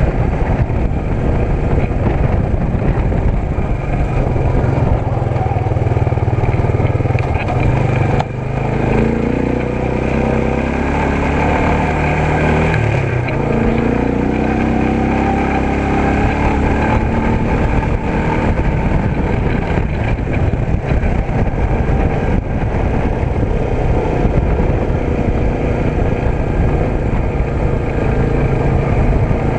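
A motor vehicle's engine running under way, its pitch gliding up and down between about a third and half-way through as it speeds up and slows.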